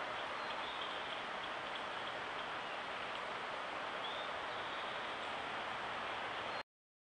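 Steady, even outdoor hiss with no distinct events, and a few faint, short, high chirps about a second in and again about four seconds in. The sound cuts off abruptly near the end.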